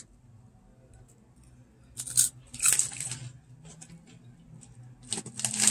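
Crunchy oven-baked cheese curls being bitten and chewed, crunching in short bursts about two seconds in and again near the end.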